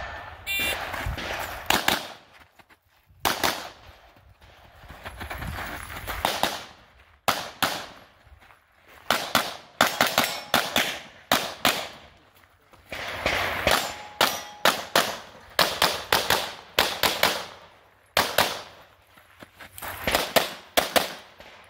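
A shot-timer beep just after the start, then rapid pistol fire from an optic-sighted competition pistol: quick pairs and strings of shots, broken by short pauses as the shooter moves between positions, until near the end.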